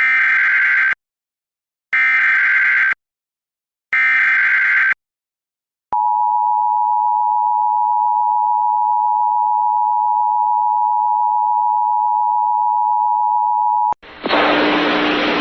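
Emergency Alert System SAME header: three one-second bursts of buzzy digital data tones, a second apart, then the EAS two-tone attention signal held steady for about eight seconds. It cuts off near the end, and a loud hissy noise comes in as the weather radio audio begins.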